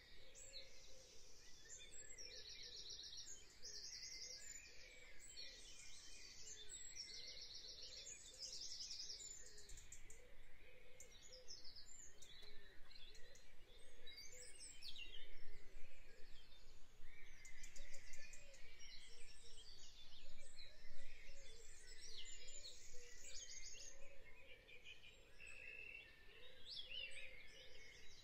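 Woodland birds singing and calling, with short rapid high trills repeating every second or two, over a faint steady background hiss.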